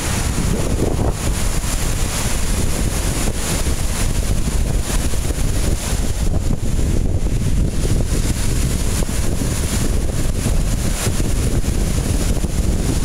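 Strong wind buffeting the microphone in a loud, steady low rumble, over the wash of waves breaking along the shore.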